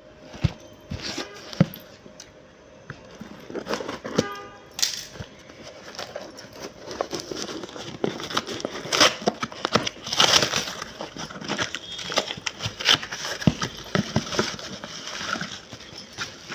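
Parcel packaging being handled and opened: irregular crinkling and rustling with scattered sharp clicks and knocks.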